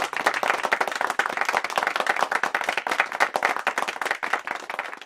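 Audience applauding, many hands clapping, tapering off near the end.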